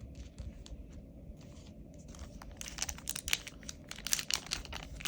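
Foil booster pack wrapper being handled and torn open, with a few light crinkles at first and then dense crackling and tearing from about halfway through that grows louder.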